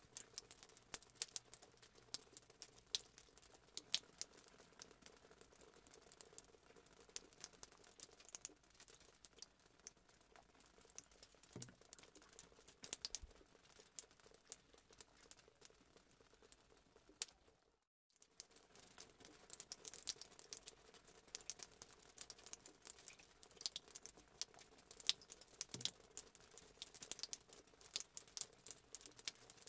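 Faint, irregular patter of water drops ticking on a hard surface, many small sharp taps a second over a low steady hum. The sound cuts out briefly about eighteen seconds in.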